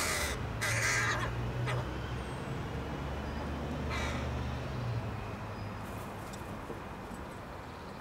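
Crows cawing: four short, harsh caws in the first half, the last about four seconds in.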